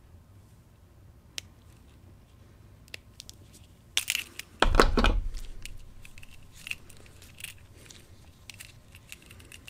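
Diagonal cutters snipping and tearing the plastic heat-shrink sleeve off a small RC battery elimination circuit (voltage regulator). A few sharp clicks, then a loud crunching tear with a thump about four seconds in, followed by light crinkling and clicks as the sleeve is peeled back.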